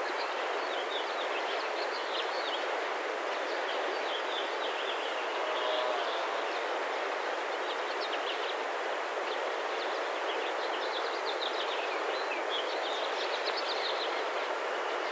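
Steady rushing outdoor background noise with small birds chirping repeatedly.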